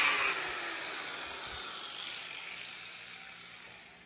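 Angle grinder with a thin cut-off wheel cutting into a small model steam engine boiler. The cutting stops about a third of a second in, and the grinder winds down, its whine falling and fading over the next few seconds.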